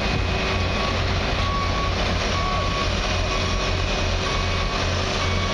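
A truck's reversing alarm beeping about once a second over the steady low running of heavy diesel engines from a concrete pump truck and ready-mix trucks.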